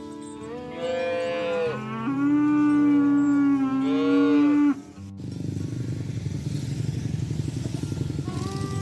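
Cow mooing in long, loud calls that bend in pitch, over background music. The calls cut off abruptly about five seconds in, and a rough, low buzzing rumble follows.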